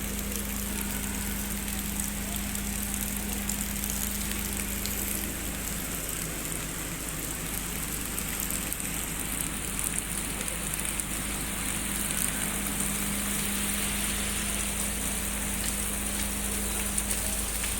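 Steady rain falling, an even hiss with no breaks, with a faint steady hum underneath.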